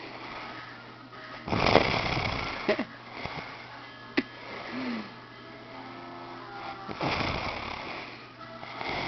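A man snoring loudly in his sleep: harsh snores about a second long, one near two seconds in and another around seven seconds, over a steady low hum.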